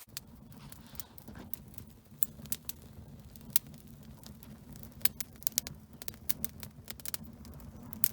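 Freshly lit tinder bundle burning, with irregular sharp crackles and pops over a steady low rumble.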